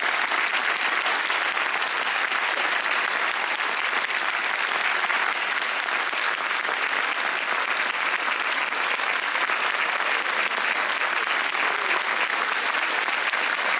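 Large audience applauding steadily, many hands clapping at once with no break.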